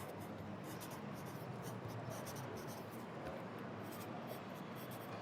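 Pencil writing on paper: quick, irregular scratchy strokes over a steady low hum of city traffic.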